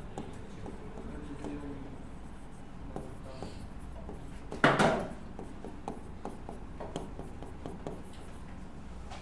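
Writing on a board: faint scraping and many small ticks of the writing tool, with one louder short knock about halfway through.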